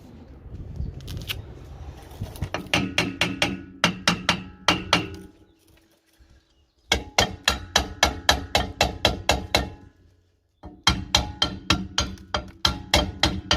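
Rapid hammer blows on a rusted rear brake drum of a Smart car, about four strikes a second, each leaving the drum ringing. The blows come in three runs with short pauses between them.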